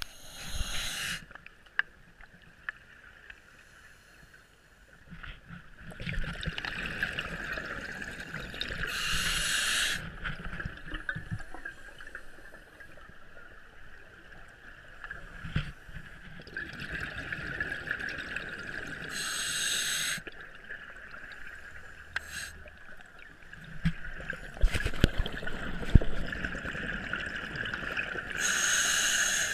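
Scuba diver breathing through a regulator underwater: a short hiss on each inhale, about every ten seconds, and the rumbling gurgle of exhaled bubbles between them, over a steady high hum.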